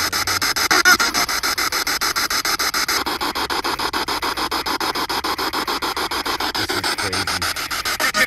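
Spirit box sweeping through radio stations: a steady hiss of static chopped into rapid, even pulses, with faint snatches of broadcast voice now and then.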